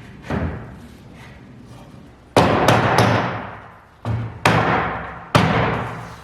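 A series of loud, sharp thuds at irregular intervals, about six in all, most of them coming after the first two seconds, each ringing on for a second or more.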